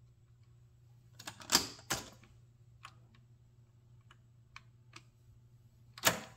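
Scattered clicks and a few louder clunks of audio equipment controls and mechanism being operated by hand, over a faint steady low hum. The loudest clunks come about one and a half and two seconds in and again near the end.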